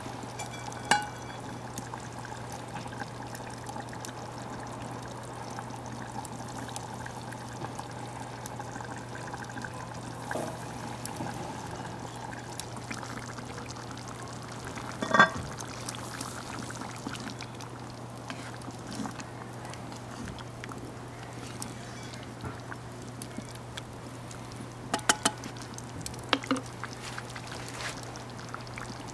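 Wood fire crackling under a cast-iron skillet, with butter chicken curry bubbling in a cast-iron Dutch oven. A sharp knock with a short ring about halfway through, and a few snaps near the end.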